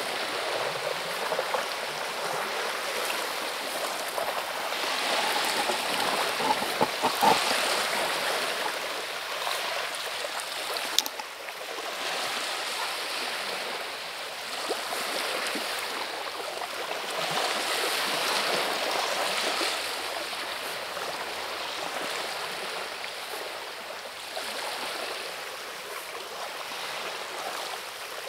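Small waves washing onto a pebble beach: a continuous rush of water that swells and eases over several seconds at a time, with one sharp click about eleven seconds in.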